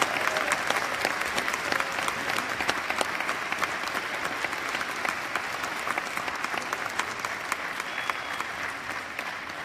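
Audience applauding, the clapping gradually dying away near the end.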